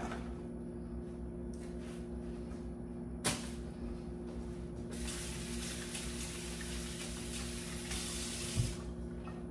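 Kitchen sink tap running for about three seconds while hands are rinsed under it, then turned off. A sharp click comes a little after three seconds and a low thump shortly after the water stops, over a steady low hum.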